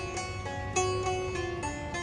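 Background music: a plucked string instrument playing a melody of separate, ringing notes, a few each second.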